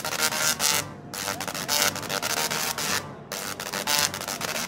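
Two singing Tesla coils playing a tune with their sparks: a harsh, buzzy electric rasp sounding the notes, with short breaks about a second in and just past three seconds in.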